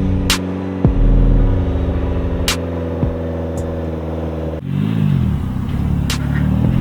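Tuned 500 hp Mitsubishi Ralliart's turbocharged four-cylinder engine idling with quick throttle blips, the pitch rising and falling back each time. There is an abrupt cut about two-thirds through, and a few sharp clicks.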